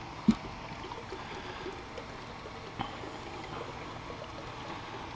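Steady trickling, lapping water, with a dull knock just after the start and a fainter one about three seconds in.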